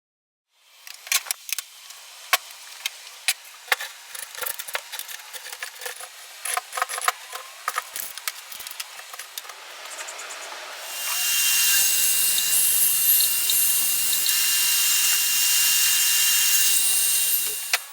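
Woodworking: a run of sharp clicks and knocks of wood and tools being handled, then a power tool starts about eleven seconds in, runs steadily with a high whine for about seven seconds, and stops just before the end.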